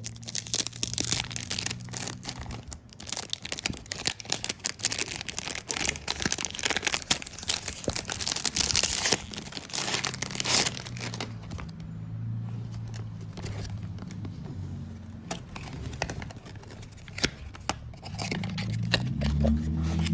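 Plastic cellophane wrapping being torn and crinkled off a perfume box: a dense, crackling rustle for about the first ten seconds, then sparser clicks and handling rustles of the cardboard box.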